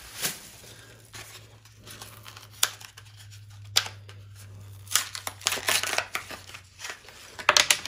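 Plastic blister pack of AAA batteries being opened: a scattered series of sharp clicks and snips, with several in quick succession near the end. A faint steady low hum lies underneath.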